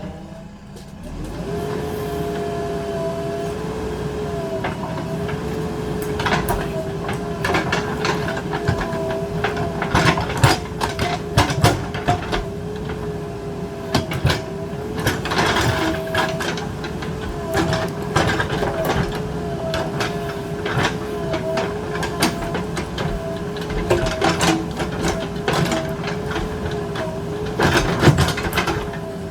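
JCB 3DX Super backhoe loader working under load: its diesel engine and hydraulics run with a steady whine that wavers in pitch, broken by frequent metallic clanks and knocks. The engine picks up to working revs about a second in.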